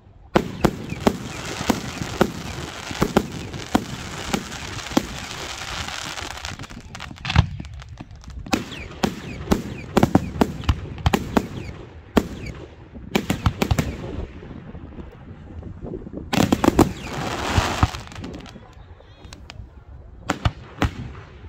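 Professional fireworks display with volley after volley of sharp bangs from shells and batteries bursting. Dense runs of rapid bursts come at the start and again about two thirds of the way through, with louder single bangs between them and fewer shots near the end.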